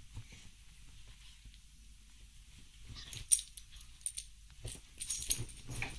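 A small dog playing roughly with a plush pig toy on a duvet: quiet at first, then a quick run of rustles and sharp clicks over the last three seconds.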